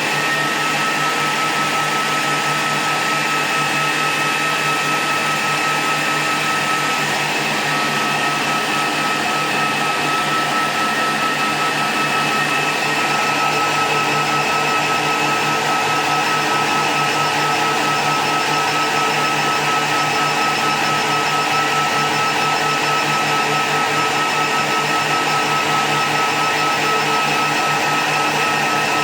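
Cooling fans of a repaired 2000-watt power supply running under test: a steady blowing whir with a constant high-pitched whine.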